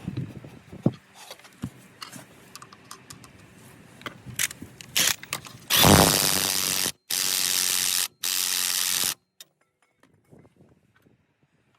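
Tools clicking and knocking, then a power tool run in three bursts of about a second each, starting and stopping abruptly.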